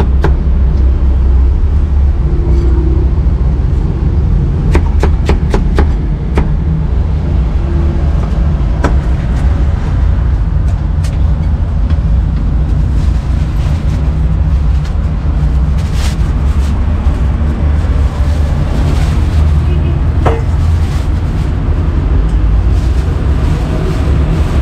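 Cleaver slicing cucumber and spring onions on a wooden chopping block: a quick run of sharp knocks about five seconds in and scattered single knocks after. Under it runs a loud, steady low rumble of street traffic.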